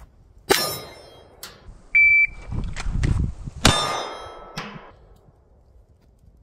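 Pistol shot with a metallic ring from a struck steel target. About two seconds in, a shot timer gives its steady electronic start beep. About 1.7 s after the beep a second pistol shot rings steel, followed a second later by a fainter knock.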